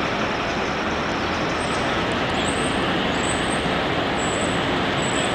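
Steady city street and traffic noise, with a Hudson-Bergen Light Rail car running toward the camera in the distance along street track. A faint high-pitched whine comes and goes from about a third of the way in.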